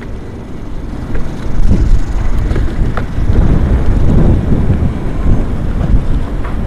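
Wind buffeting the microphone: a loud, gusting rumble that swells about a second and a half in.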